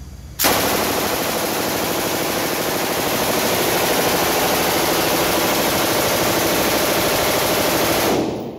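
Belt-fed light machine gun on a bipod firing one long fully automatic burst of about seven and a half seconds, starting about half a second in, the shots running together without a break. The firing echoes in an indoor range and dies away quickly when it stops near the end.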